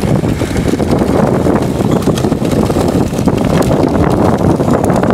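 Steady rushing scrape of sled runners sliding over packed snow, with scattered small clicks and wind buffeting the microphone.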